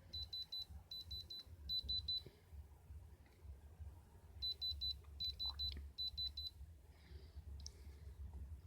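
Electronic beeper sounding in quick groups of about four high beeps: three groups, a pause of about two seconds, then three more, over a low steady hum.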